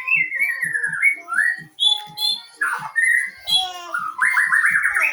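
A bird singing in quick whistled phrases, many notes sliding downward, over a steady low pulse about three times a second.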